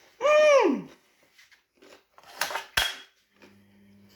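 A woman's high-pitched wordless exclamation, an 'oooh' that rises briefly then falls away, lasting under a second. It is followed a couple of seconds later by a short rustle and a single sharp click.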